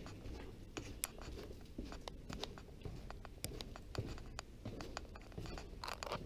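Footsteps going down a stairway: irregular sharp taps and scuffs, a few louder ones about a second in and again near the end, over a steady low rumble.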